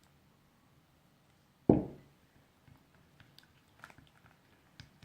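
A single thump, then sticky squelching and small clicks of glue-based slime being stirred with a toy plastic knife in a plate as it begins to thicken.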